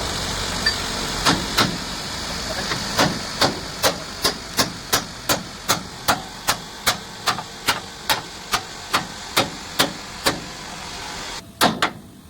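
Hammer blows on steel during leaf-spring repair, struck evenly at about two and a half a second, over a steady rushing noise that stops near the end.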